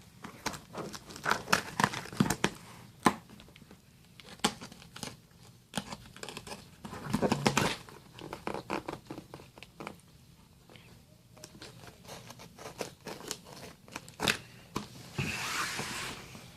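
Packing tape being torn and peeled off a cardboard shipping box, with crinkling and irregular knocks and scrapes of the cardboard and a couple of longer rips.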